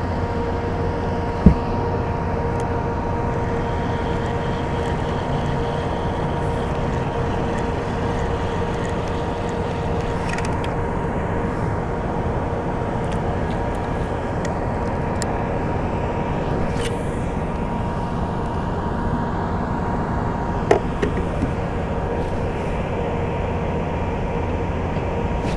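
A steady mechanical hum with a constant pitch and a low rumble under it, holding at one level throughout. A short knock about a second and a half in, and another near the end.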